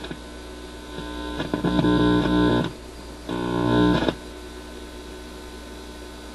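Record player's amplifier buzzing loudly through its speaker twice, for about a second each, as fingers handle the cartridge wiring at the tonearm head, over a steady mains hum. It is typical of hum picked up by a hand on an open phono input.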